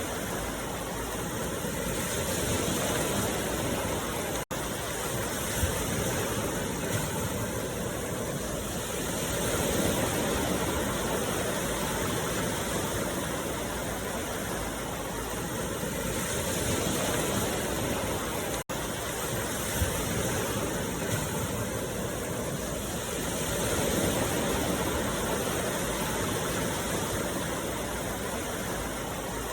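Continuous rushing noise of a meditation soundtrack, swelling and easing slowly about every seven seconds, with two split-second dropouts.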